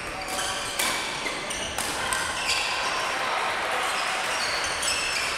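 Badminton play in a sports hall: court shoes squeaking in short bursts on the floor, with a few sharp racket hits on the shuttlecock, about one and two seconds in.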